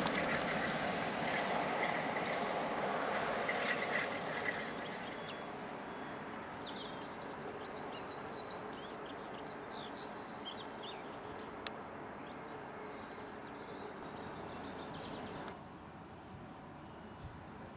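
A class 47 diesel locomotive running light away into the distance, its engine and rail noise fading over the first few seconds, with birds chirping above it. The sound drops suddenly near the end.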